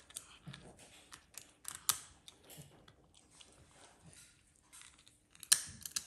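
A raccoon chewing and crunching a nut: irregular sharp clicks and crunches, with the two loudest about two seconds in and near the end.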